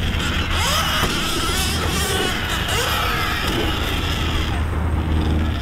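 SurRon electric dirt bike's motor whining, its pitch rising and falling as the rider works the throttle around the track, over a steady low hum.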